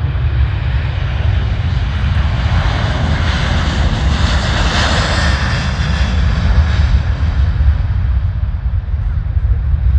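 KLM Airbus A330-300 twin-engine jet passing overhead: a deep steady rumble with an engine roar that swells to its loudest about halfway through, then fades.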